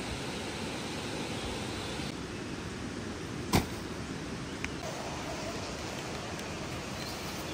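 Steady rushing outdoor background noise, with one sharp knock about three and a half seconds in and a faint click about a second later.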